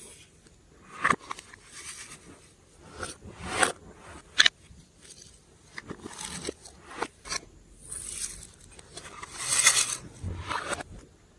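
Glossy slime being mixed and handled: irregular sticky crackles, clicks and small pops, with a longer, louder stretch of crackling near the end.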